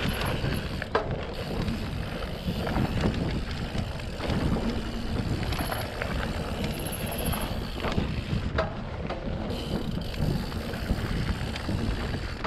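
Mountain bike rolling along a dirt singletrack: steady wind rumble on the microphone over tyre noise, with a few sharp clicks and knocks from the bike.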